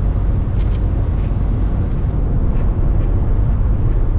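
Car driving at speed: steady low road and engine rumble.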